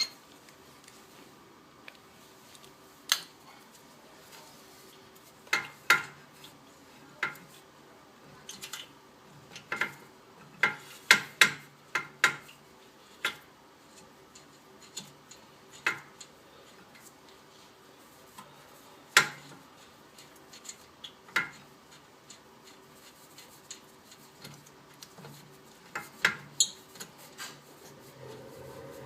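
Irregular sharp metallic clinks and clacks of brake parts and hand tools being handled, with a quick cluster of them partway through. A low steady hum comes in near the end.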